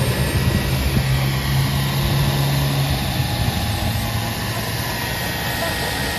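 JetCat turboprop engine of a large RC Super Tucano model idling on the ground, propeller turning: a steady low hum under a high turbine whine.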